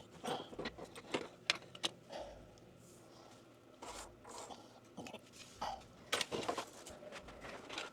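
Irregular scrapes, clicks and rustles of plastic PEX tubing and fittings being handled and pushed into place.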